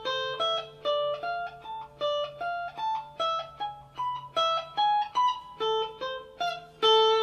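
Guitar playing a lead line of single picked arpeggio notes, about three a second, each ringing and dying away, ending on a held note near the end. The line follows the A minor, D minor and E major chords.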